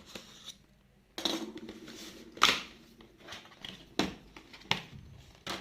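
A sealed CPU retail box being opened by hand: rustling and tearing of the seal and cardboard packaging, with one sharp tear or snap about two and a half seconds in, then a few sharp clicks as the packaging is handled.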